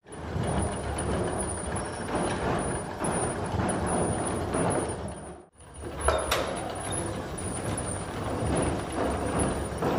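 Water frame spinning machine running: flyer spindles, drafting rollers and gearing rattling in a dense, steady din with a thin high whine above it. The sound breaks off briefly about halfway through and resumes, with a sharp click soon after.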